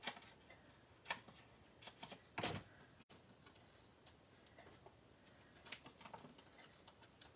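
Faint snips and rustles of a sheet of foam adhesive dimensionals being cut with scissors and handled on a craft mat. There are a few short clicks, the strongest a soft knock about two and a half seconds in.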